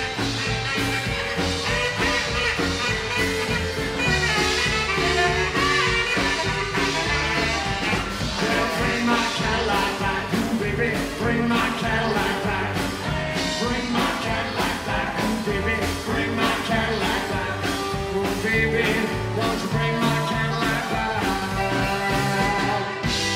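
Live rockabilly band playing with a steady beat: saxophone, upright double bass, acoustic guitar and drums.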